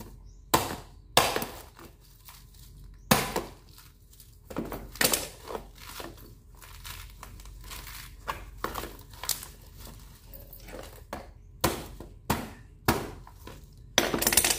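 Coconut being husked by hand with a bolo: sharp, irregular chops of the blade into the dry fibrous husk, with the crackle and rip of husk fibres being pried and torn off between strikes. A quick run of chops comes near the end.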